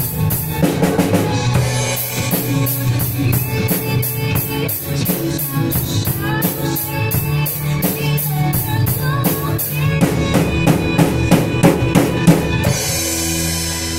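A drum kit played along with backing music: a steady beat of hi-hat or ride ticks, about four a second, over snare and bass drum. Near the end it builds into a fill of louder hits and ends in a cymbal crash.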